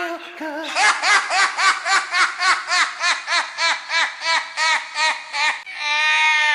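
Laughing vocal sample in the background music: a rhythmic run of 'ha' syllables, about four a second. It ends in a held note whose pitch drops steeply at the very end.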